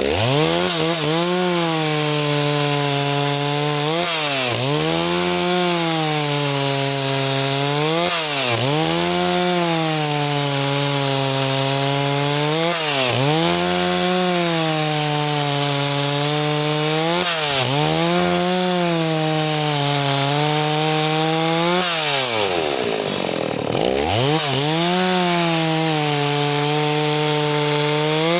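Stihl 038 two-stroke chainsaw running at high revs and cutting wood. The engine pitch dips briefly about every four seconds, then drops deeply and climbs back up near the end.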